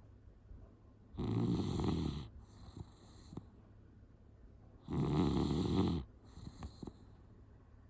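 A sleeping dachshund snoring: two loud snores about four seconds apart, each followed by a softer, hissier breath.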